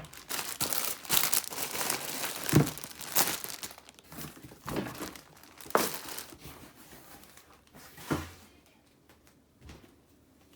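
Packaging crinkling and rustling as it is handled, with dense crackles for the first six seconds or so, then only a few scattered ones, fainter toward the end.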